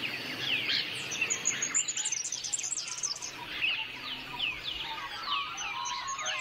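Australian bush birds in a morning chorus: many overlapping chirps and quick falling whistles, with some lower calls joining in near the end.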